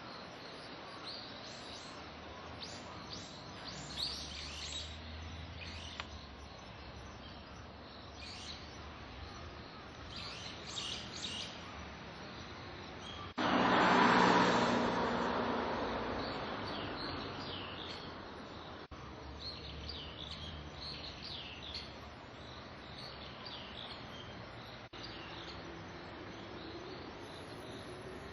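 Small birds chirping over steady outdoor background noise. About halfway through, a louder rush of noise starts suddenly and fades away over several seconds.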